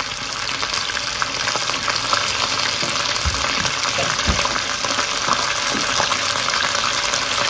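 Canned mackerel frying in hot oil with onion and garlic, a steady sizzle that grows slightly louder, with two soft low thumps about a second apart near the middle. The fish went in drained of its tomato sauce, so it fries in the oil rather than stewing.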